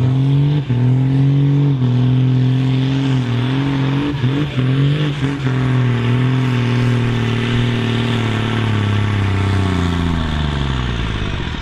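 John Deere pulling tractor's diesel engine at full throttle under heavy sled load: a steady, loud drone that wavers briefly about four seconds in, then sinks in pitch over the last few seconds as the engine lugs down against the mounting drag of the sled.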